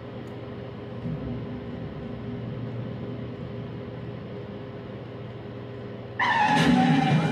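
Steady low hum and hiss of room background. About six seconds in, loud music from a television in the room cuts in suddenly.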